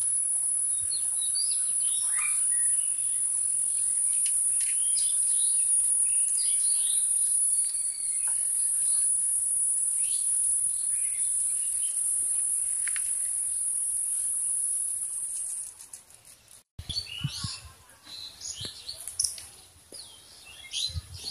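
Steady, high-pitched drone of insects with scattered bird chirps over it. About sixteen seconds in the drone cuts off abruptly, leaving the bird calls and a few low thumps.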